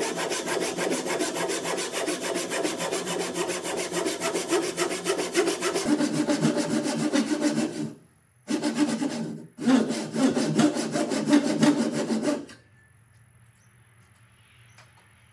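Japanese-style pull saw ripping down into the end grain of a board with rapid, even strokes. It stops about eight seconds in, saws twice more in short spells, and stops for good a few seconds before the end.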